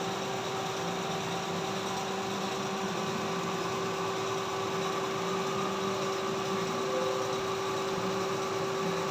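CNC vertical lathe running: a steady machine hum with one constant mid-pitched tone over an even noise.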